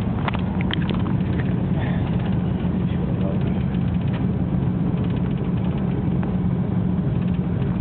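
Steady low engine drone, with a few short clicks and faint voice-like sounds in the first second.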